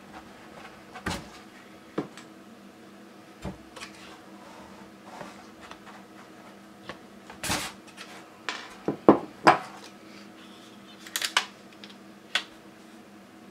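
Scattered clicks and knocks of hard plastic parts and a metal tool as a 12A laser toner cartridge is pried open and pulled apart by hand. The knocks are loudest in a quick cluster about two-thirds of the way through.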